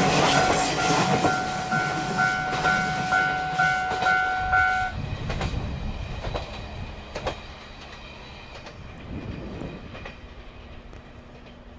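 A train rolling past a level crossing, its wheels clacking over rail joints, while the crossing's electronic alarm rings in a steady pulsing tone. About five seconds in the alarm stops and the train's sound fades away, leaving a few wheel clicks.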